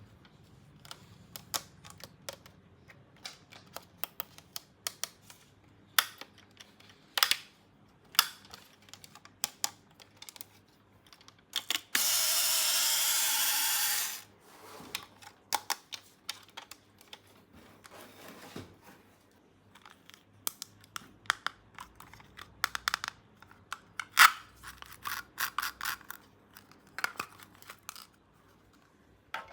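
Small plastic toy parts being handled, with scattered light clicks and taps. About twelve seconds in comes a steady hiss lasting about two seconds, the loudest sound in the stretch.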